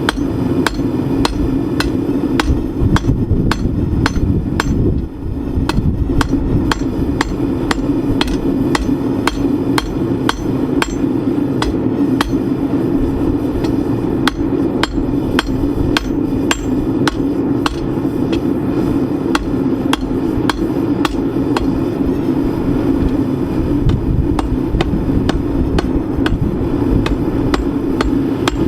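Hand hammer forging iron on an anvil: sharp metallic blows at a steady pace of about three a second, with a short break about five seconds in. A steady drone runs underneath.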